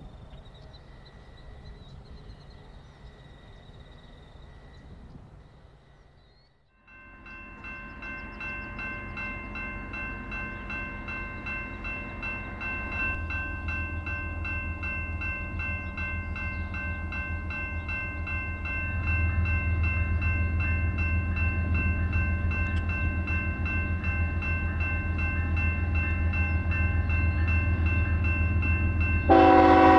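Grade-crossing bell dinging in a quick, regular rhythm while an approaching BNSF freight's diesel locomotives rumble in, growing louder. Near the end the lead locomotive sounds its multi-chime horn, which is the loudest sound.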